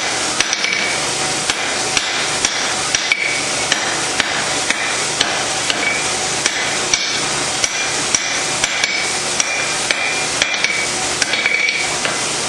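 Blacksmith's hand hammer striking hot steel on an anvil, about two blows a second, as a knife blade is forged by hand; some blows leave a brief ring. A steady rushing noise runs underneath.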